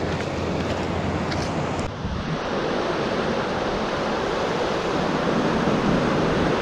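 Steady rushing wash of surf breaking on the beach, with some wind on the microphone.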